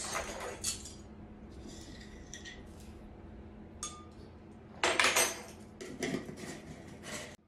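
Metal measuring spoons clinking and tapping against a glass mixing bowl and glass jars, with a short ringing clink about four seconds in and a burst of clatter a second later.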